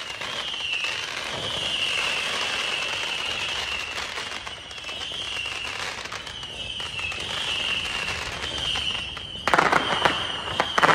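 Consumer fireworks going off: a steady crackle of small pops under a wavering high tone that repeats about once a second, then a loud, rapid string of firecracker bangs about nine and a half seconds in.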